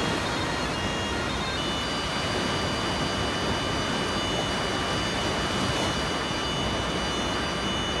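Sea waves breaking on a sand beach in a steady rushing surf, with tulum bagpipe music over it: thin high held notes come in about a second and a half in.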